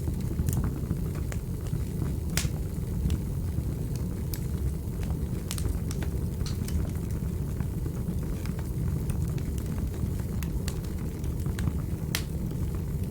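Wood fire crackling in a fireplace: irregular sharp pops and clicks over a steady low rumble of the flames.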